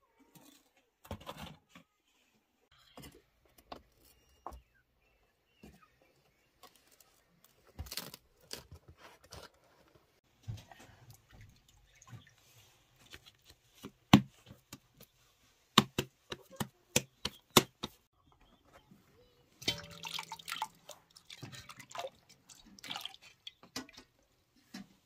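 Water dripping and splashing from wet hands and dough into a metal bowl, with scattered sharp knocks and handling sounds as bread dough is shaped by hand. The loudest knocks come in the middle.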